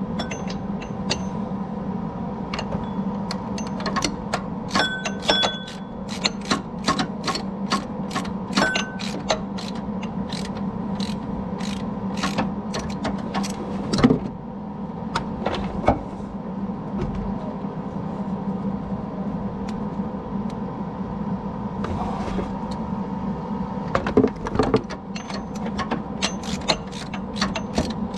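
Hand ratchet clicking in irregular runs while a snapped serpentine-belt tensioner bolt is worked out, over a steady hum.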